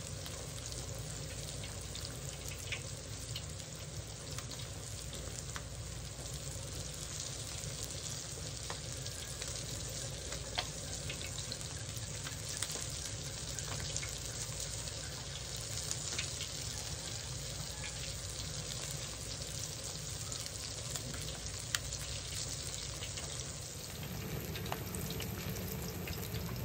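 Breaded crappie fillets frying in oil in a disc-blade wok: a steady sizzle with scattered small pops of spattering oil.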